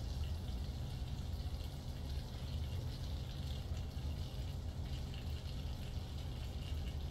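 Butter and olive oil sizzling in a hot pot, with a fine, continuous crackle of small pops over a steady low hum. The fat is being brought up to searing heat, ready for the chicken.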